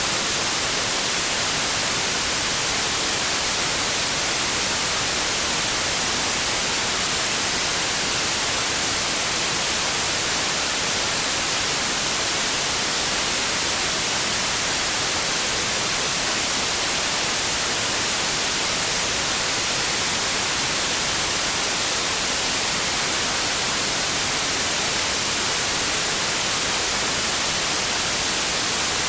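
Steady, unbroken white noise: an even hiss, brightest in the treble, with no change in level.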